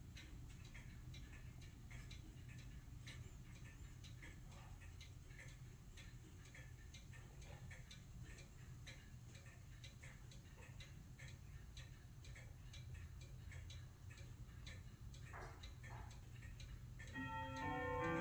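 Chelsea Shipstrike 6-inch ship's bell clock, its key-wound movement ticking faintly and evenly. Near the end a run of pitched tones comes in and grows louder.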